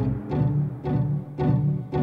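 Background music with a steady beat of low notes, just under two a second.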